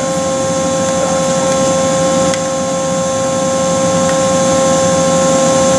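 Steady machine hum of a powered-up Matsuura MX-330 CNC machining centre, with several fixed tones over an even noise, and a faint click about two seconds in as a key is pressed on the Fanuc control panel.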